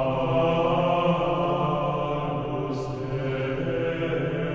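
Slow religious chant of low voices on long held notes over a steady drone, laid as solemn soundtrack music.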